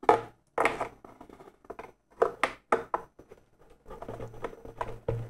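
Scattered light clicks and scrapes of a metal propeller shaft being slid and pushed through the shaft tube of a 3D-printed plastic RC boat hull.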